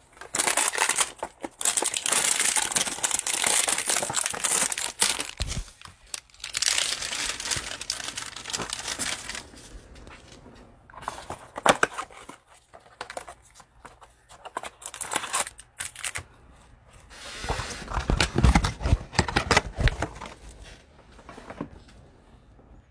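A cardboard trading-card hanger box being torn open by hand, its packaging crinkling and tearing in irregular bursts with short pauses between. A few sharper, louder handling noises come in the second half.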